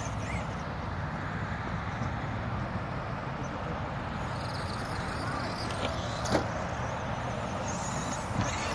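Steady low engine rumble with a hiss over it, and a short knock a little past the middle.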